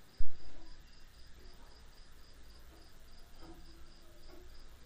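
A cricket chirping steadily in the background, about three chirps a second, over a low hum. A single loud thump comes just after the start.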